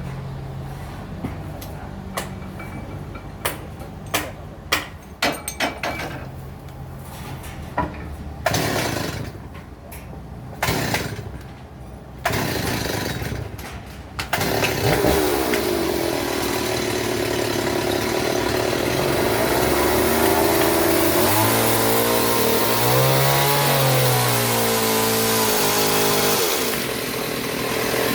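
Engine-driven sawmill saw. For the first half its engine runs low, with knocks and clanks and a few short bursts. From about halfway the saw cuts through timber with a loud, steady noise, and the engine note sags and rises under the load.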